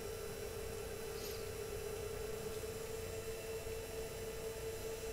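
Dell PowerEdge R210 II 1U rack server's cooling fans running steadily at their settled low speed during POST: a steady hum with one clear tone over a soft airy hiss, about as quiet as this server gets.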